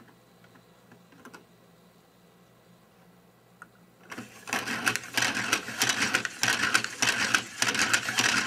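3D-printed plastic partial-pinion and double-rack mechanism turned by hand, the pinion meshing alternately with the upper and lower racks to drive the yoke and slider back and forth. A few faint clicks at first, then from about four seconds in a fast, loud clatter of plastic teeth and sliding parts as it is spun quickly.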